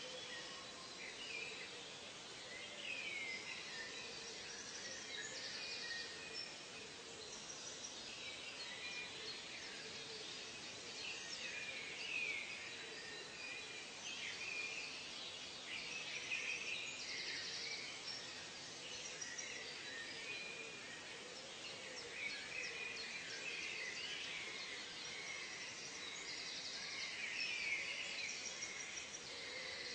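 Nature soundscape of many birds chirping and calling in short sliding notes, with insects buzzing now and then, over a steady background hiss.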